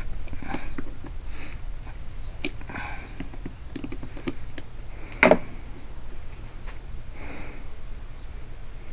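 Small clicks and handling noises of metal lock parts being worked by hand, with one sharp, louder click about five seconds in, and a few soft sniffs or breaths between them.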